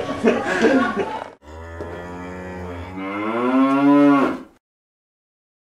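A cow mooing: one long moo that rises in pitch over a low hum and cuts off suddenly, after about a second and a half of voices.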